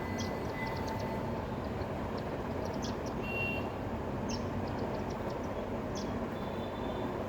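House sparrows chirping in short, high calls scattered through, a few at a time, over a steady low rumble.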